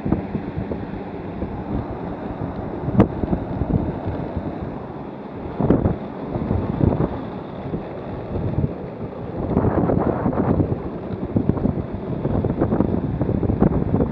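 Wind buffeting the microphone over the rumble of the wheel suit's wheels rolling fast on asphalt, swelling and easing with a few sharp clicks.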